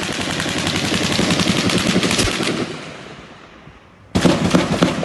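Automatic gunfire: a long burst of rapid shots that dies away, then a second, louder burst about four seconds in.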